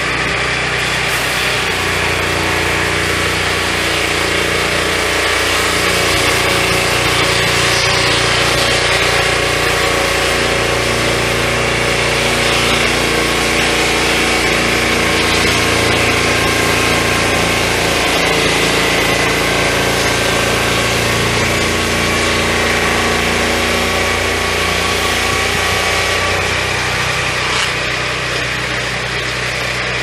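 Turbosawmill M12 Warrior 12-inch swingblade sawmill running steadily, its engine under load as the circular blade saws along the log while the carriage travels down the rails.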